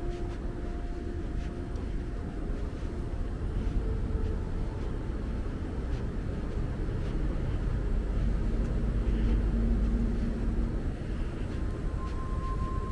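City street traffic: a steady low road rumble that swells as a vehicle passes about eight to ten seconds in.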